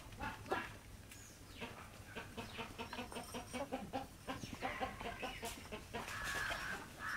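Hens clucking softly as they feed, a run of short repeated notes, with quick taps of beaks pecking at a basket of azolla.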